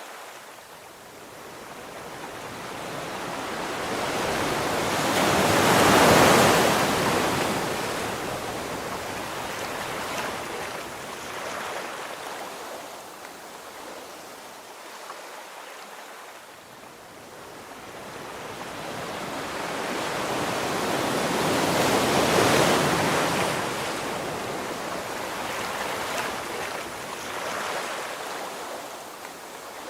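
Surf washing on a shore: a steady wash of water noise that swells twice, slowly rising and falling, about sixteen seconds apart.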